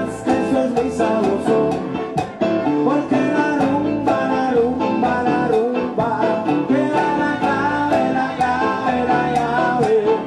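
A Latin jazz band playing live: timbales, congas and bongos keep up a rhythm of sharp hits under piano and bass, with a wavering melody line on top.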